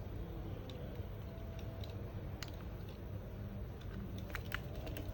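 Small, sharp, irregular clicks and ticks of a precision screwdriver and tiny screws being worked on a smartphone's internal metal plate, over a steady low hum.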